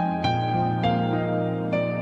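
Soft, slow instrumental background music, new-age in style: sustained notes with a new note or chord struck every half second to a second.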